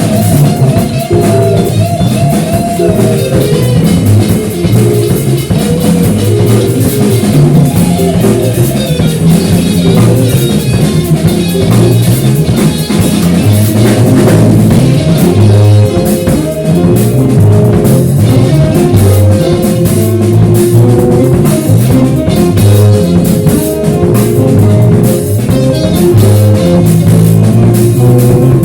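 Live rock band playing an instrumental passage: distorted electric guitars over a steady drum kit beat and bass.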